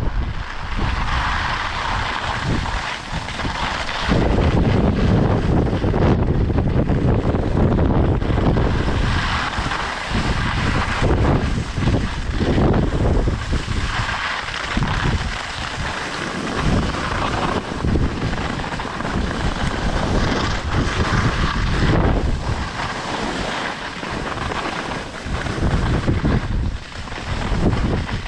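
Strong wind buffeting the microphone in gusts: a heavy low rumble that surges and drops every second or two over a steady hiss.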